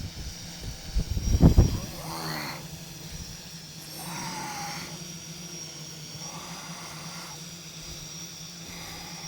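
Yuneec Typhoon H hexacopter hovering, its motors and propellers giving a steady hum with a high whine over it. Wind buffets the microphone in a low rumble about a second in.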